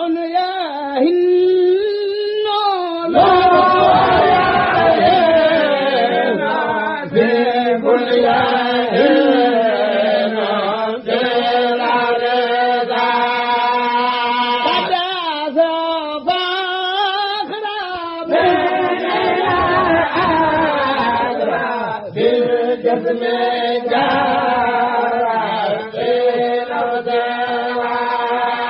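Unaccompanied chanted recitation of a Mouride khassida, an Arabic devotional poem, sung with long held notes that slide up and down in pitch and with only brief breaks between phrases.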